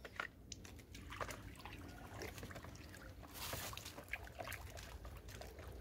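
Faint sloshing and swirling of water as a bamboo pole stirs a barrel of root-stimulant solution, with a few small clicks. A slightly louder swish comes about halfway through.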